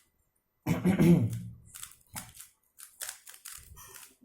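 A person clears their throat loudly about a second in. Then comes a run of quick, irregular clicks as an RS3M 2020 3x3 speed cube is turned.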